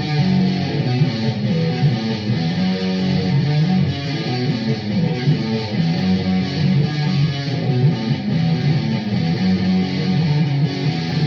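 Electric guitar fitted with Hot Rails pickups, plugged in and played: a continuous run of quickly changing notes in the low-to-middle range.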